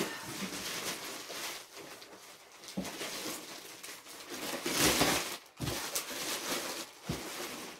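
Handling of a large cardboard box: rustling and scraping as it is lifted and turned, with a few light knocks and a louder rustle about five seconds in.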